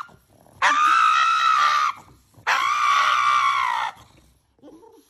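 Pug screaming while having its nails clipped: two long, high-pitched screams with a short pause between them.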